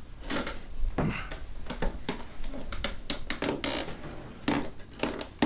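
Hands handling a plastic blister pack of laptop memory, giving a run of irregular clicks and crackles.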